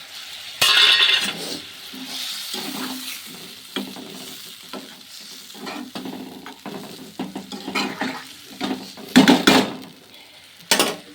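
A spoon stirring and scraping in a pan of egg curry as it sizzles, with a run of short clattering scrapes; the loudest come about a second in and near the end.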